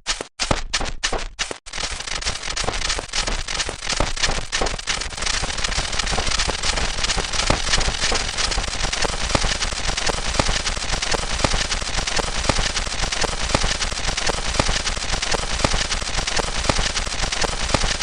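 A rapid-fire string of short sound-effect clips spliced one after another. Each clip is cut off sharply, and they come faster and faster until, after about two seconds, they blur into a dense, continuous clatter of noise.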